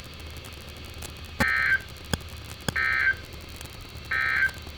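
Emergency Alert System end-of-message (EOM) data tones played through a NOAA Weather Radio receiver's speaker: three short bursts of digital tone about 1.3 s apart, marking the end of the warning broadcast. A few sharp clicks fall between the bursts.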